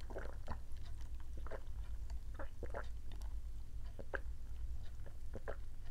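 A person drinking soda through a straw, close to the microphone: about a dozen short sips and swallowing gulps at irregular intervals.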